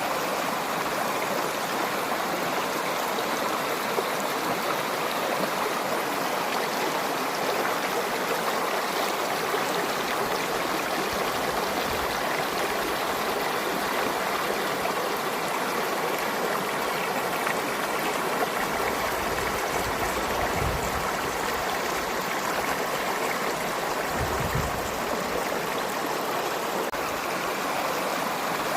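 Stream water flowing steadily over rocks, an even rushing and gurgling with a few brief low rumbles partway through.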